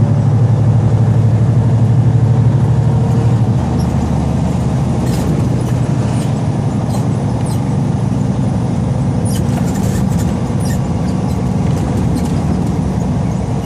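Tractor-trailer's diesel engine and road noise heard from inside the cab while driving: a steady low hum that eases slightly about three and a half seconds in, with a few faint ticks and rattles.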